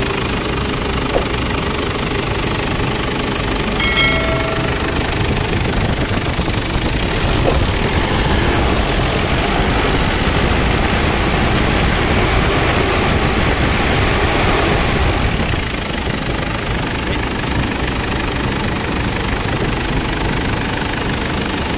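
A Ford Everest engine running steadily at idle with a knocking clatter, now fitted with a new timing belt and rocker arms.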